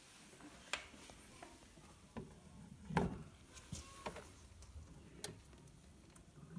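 Scattered light clicks and knocks of a vinyl picture disc being handled and set on a record turntable, with one heavier thump about three seconds in.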